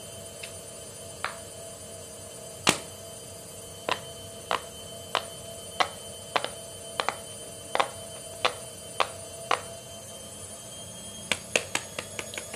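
Bubbles of a silicone pop-it fidget toy being pressed one at a time. Short sharp pops come about every half second to a second, then a quicker run of pops near the end.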